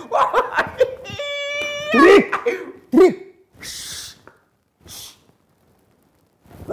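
A man's wordless vocal noises: throat sounds, a held sung note, then sliding cat-like cries, followed by a long hushing "shh" and a short hiss.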